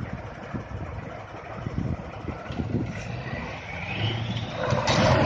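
Heavy KamAZ diesel truck engine running, with a whine that rises in pitch over the second half and a short loud burst of noise near the end.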